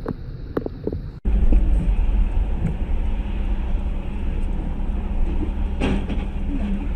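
Steady low rumble of a car's engine and road noise, heard from inside the cabin through a dashcam, with a few faint taps at first. About a second in it cuts to a louder rumble, and a brief sharp click comes near six seconds.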